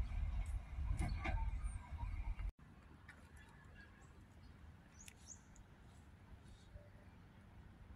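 Birds chirping now and then over a low rumble that cuts off abruptly about two and a half seconds in; after that only faint, sparse chirps remain.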